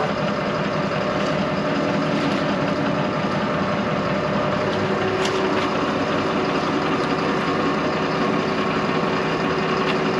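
New Holland 315 tractor's diesel engine idling steadily, its hum strengthening a little about four and a half seconds in, with a short click about five seconds in.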